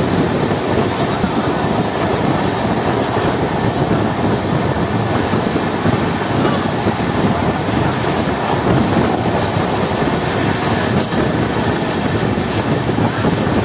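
Passenger train running along the track, heard from inside the coach: a steady, loud rumble of wheels and carriage, with a single sharp click about eleven seconds in.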